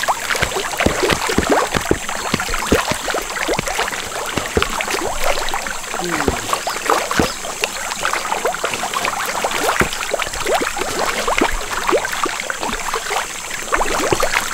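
Water splashing and sloshing irregularly, as of someone moving through pond water, with a steady high-pitched drone underneath.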